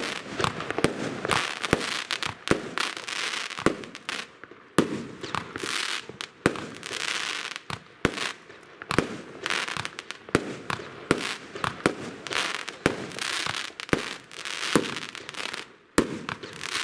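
Piromax Prime consumer firework battery (cake) firing: a steady string of sharp shots, about two a second, each launch and burst followed by hissing.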